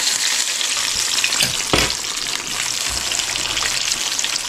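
Cornmeal-coated crappie chunks frying in hot grease in a cast iron frying pan: a steady sizzle with small crackling pops, and one dull knock a little under two seconds in.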